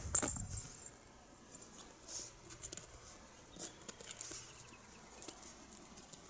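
Light scuffs and scratchy patters of kittens' paws on gritty asphalt as they jump and pounce at a feather wand toy. There is a low thump right at the start, and short rustles come every second or so.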